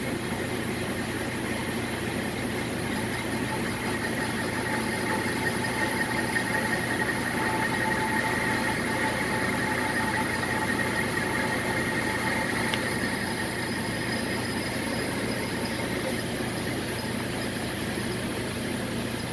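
A power tool running steadily while cutting out the centre of a motorcycle wheel hub to fit a 17 mm bearing, with a metal-cutting squeal that builds through the middle and eases off near the end. A single short click about two-thirds of the way through.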